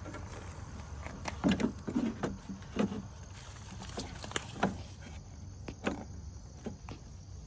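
Plastic fuel-door housing of a Jeep Wrangler JL knocking and clicking against the body and fuel filler neck as it is handled and pressed into place: a string of short, irregular taps and clatters.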